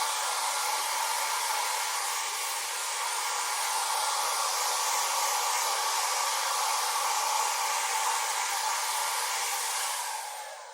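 Electric hair dryer running with a steady blowing rush and a faint motor whine, then switched off near the end, the sound dying away.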